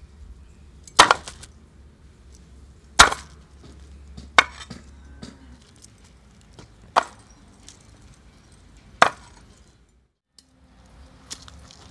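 Raw jackfruit being chopped with a large knife on a wooden board: five sharp chops, about two seconds apart, as the blade goes through the fruit into the wood.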